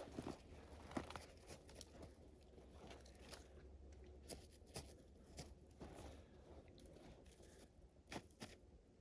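Near silence, broken by faint, irregular crunches and clicks of hand work.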